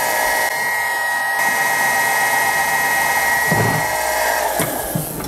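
Milling machine spindle, driven by a 600 W three-phase brushless motor, running with a steady high whine while a center drill spots a hole in brass. Near the end the motor winds down and stops quickly.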